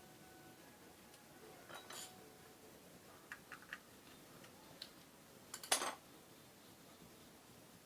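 Light metallic clinks and ticks of small parts or tools being handled, scattered and brief, with a sharper clatter about six seconds in.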